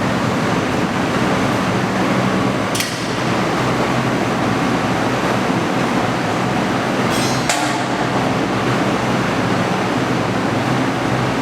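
Steady industrial machinery noise with a low hum in a kiln workshop where ceramic kamado bodies are pushed into the kiln. It is broken twice by a sharp metallic clank, once about three seconds in and again about seven seconds in.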